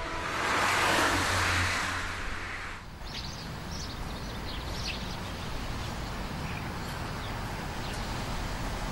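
A car passes on the road, a swelling rush that fades away about three seconds in. Then comes steady outdoor background noise with birds chirping.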